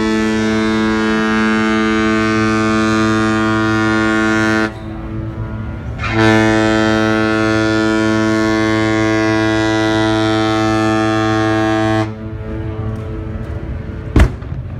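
MS Artania's ship horn sounding two long, steady blasts as the cruise ship leaves port. The first blast ends about four and a half seconds in, and the second begins about a second and a half later and lasts about six seconds. A single sharp knock comes near the end.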